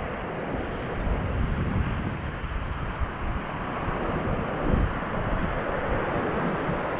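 Shallow sea surf washing in over a flat sandy beach, under a strong, uneven rumble of wind buffeting the microphone.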